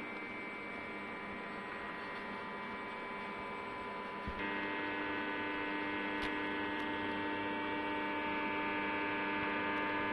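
Thermo Scientific laboratory extrusion line running polypropylene film: a steady electric hum made of several whining tones. About four seconds in, a click comes, then higher tones join and the hum grows louder.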